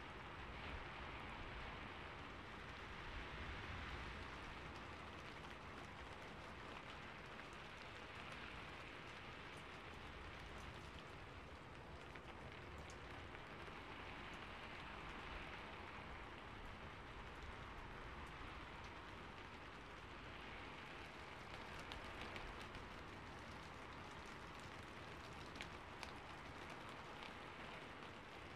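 Faint, steady hiss like soft rain, swelling gently now and then, with a few light clicks.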